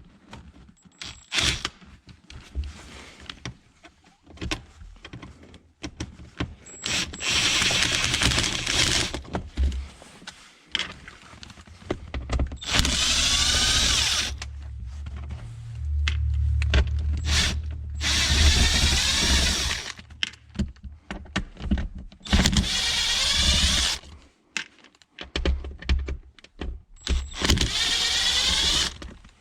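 Impact gun running in about five bursts of two to three seconds each, backing out bolts, with sharp clicks and clinks of bolts and tools in between.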